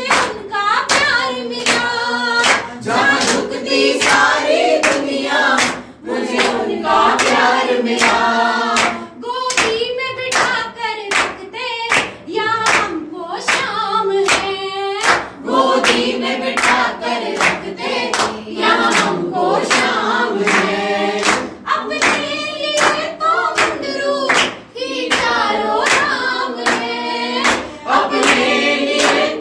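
A group of voices singing together in chorus, with steady rhythmic hand clapping keeping the beat.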